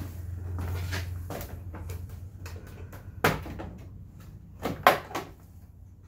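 Plastic handlebar cover of a scooter being pulled and worked loose by hand: one sharp plastic clack about three seconds in, then a quick cluster of clacks a second and a half later. A low hum fades during the first second and a half.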